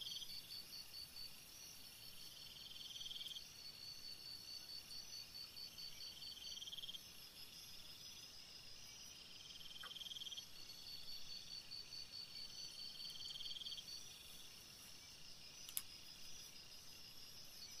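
Faint night chorus of crickets and other insects: a steady, fast, high trill, and a lower buzzy call that swells for about a second every three seconds or so. A single sharp click sounds near the end.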